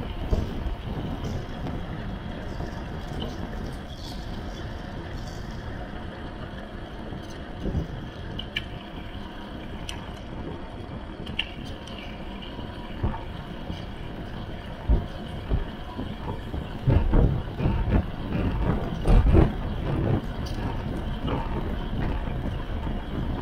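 Steady rush of wind over the microphone with tyre noise from a bicycle towing a Burley Coho XC single-wheel trailer at around 50–60 km/h. In the second half there is a run of loud low thumps and buffets.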